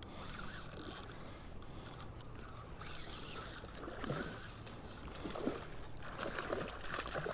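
Quiet sloshing and lapping of shallow surf water around a wading angler, with faint ticks from a Penn Spinfisher spinning reel being cranked.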